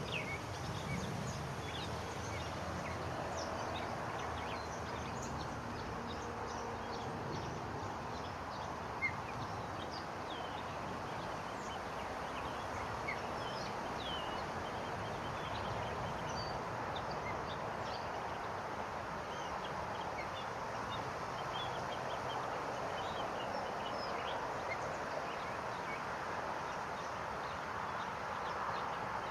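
Steady outdoor background noise with many short, high bird chirps scattered throughout, and one sharp click about nine seconds in.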